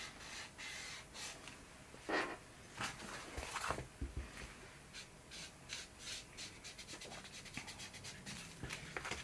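Ink being rubbed onto the edges of a paper envelope: a string of short, faint, scratchy rubbing strokes on paper, a few of them louder in the first half.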